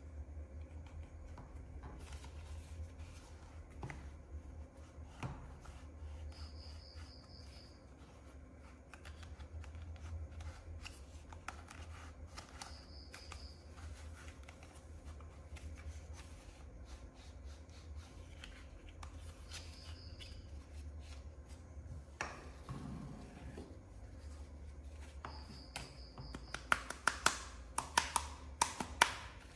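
Hands handling and unpacking action-figure toy packaging: faint rubbing and scattered small clicks over a steady low hum, then a quick run of sharp clicks and taps in the last few seconds.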